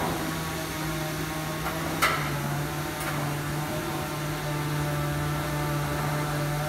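A motor runs with a steady pitched hum, and a single sharp knock sounds about two seconds in.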